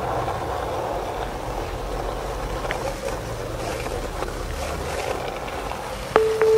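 Skateboard wheels rolling over asphalt: a steady rough rumble. Just before the end a sharp click sounds and a held musical tone comes in.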